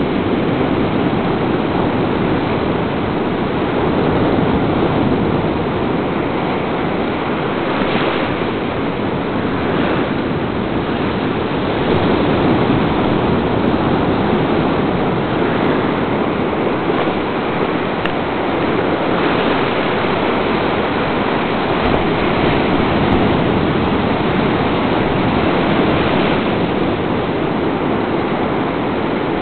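Ocean surf breaking close by and washing up the beach in a steady rush, swelling each time a wave breaks.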